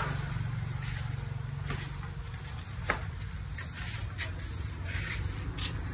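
Steady low hum of running workshop machinery with a fine even pulse, with a few light clicks and taps over it.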